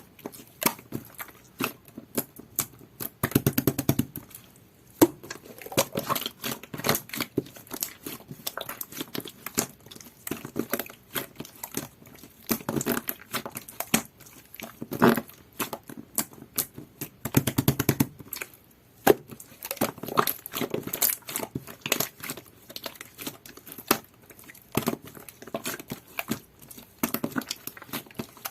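Hands squishing and stretching a jelly-textured slime mixed with clay, giving a steady run of irregular crackles and small clicking pops.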